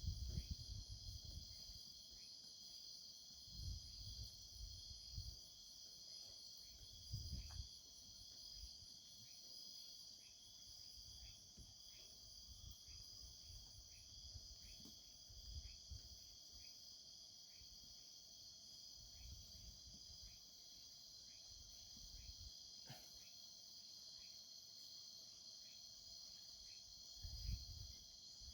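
Faint night chorus of crickets, a steady high trill, with a lower short chirp repeating about once a second. A few soft low rumbles come through now and then.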